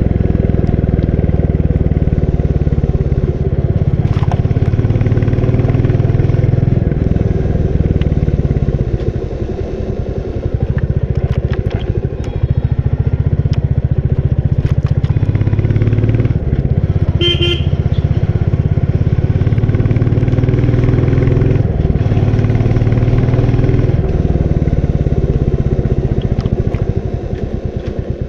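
Royal Enfield Bullet 350's single-cylinder engine and exhaust running under way on the move, easing off for a moment about a third of the way in and again near the end. A short horn honk about two-thirds of the way in.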